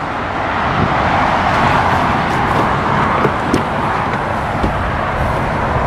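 Steady rushing road-traffic noise with a low rumble underneath, and a few light clicks and knocks as a car door stands open and someone climbs in.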